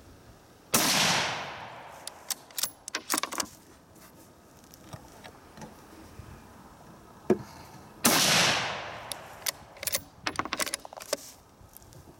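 Two shots from a Howa 1500 bolt-action rifle in .223, about seven seconds apart, each ringing off over about a second. Each shot is followed by a quick run of metallic clicks as the bolt is worked to eject the spent case and chamber the next round.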